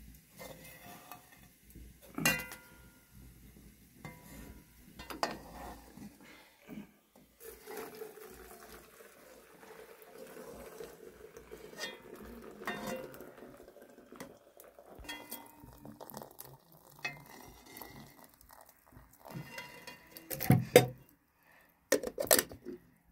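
Dishes and pots clinking and knocking against each other in scattered handling sounds. The sharpest knocks come about two seconds in and near the end.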